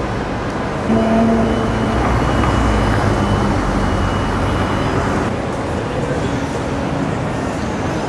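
City street traffic noise, steady and rumbling. It gets louder from about a second in, carrying a steady hum, and changes abruptly about five seconds in.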